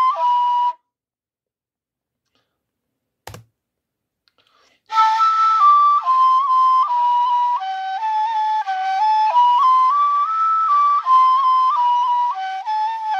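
Kaval, the Bulgarian wooden end-blown flute, playing a folk dance melody. A held note stops under a second in, then there is a silent gap broken by a single soft knock about three seconds in; about five seconds in a new phrase starts with a breathy attack and runs on in quick stepwise notes.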